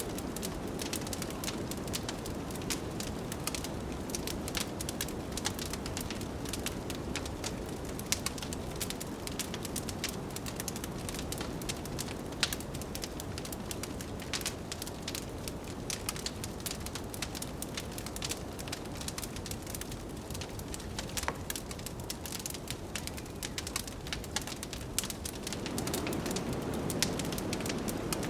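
Wood fire crackling with frequent sharp pops over a steady low rush of blizzard wind, which grows louder near the end.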